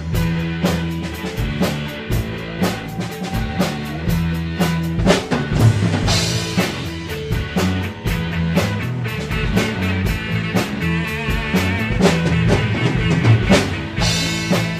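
Rock music with a drum kit beat and bass.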